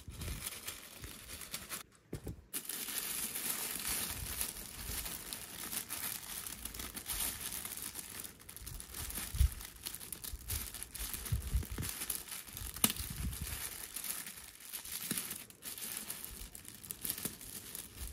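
Tissue wrapping paper crinkling and rustling as hands unfold it and peel stickers off it. There is a short pause about two seconds in.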